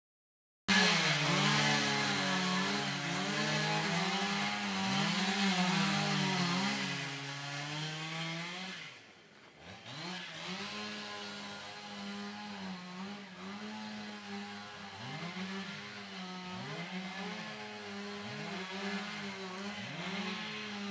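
Chainsaw running and cutting timber, its engine pitch dipping and rising again and again as it bites into the wood and frees up. It fades out about nine seconds in and comes back quieter.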